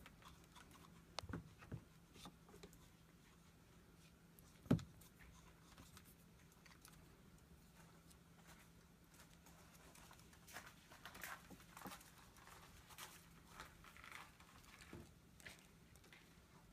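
Near silence with faint handling noise as electrical wires are twisted together in a wire nut: a few small clicks, one sharper knock about five seconds in, and soft scattered rustling and clicking later on, over a faint steady hum.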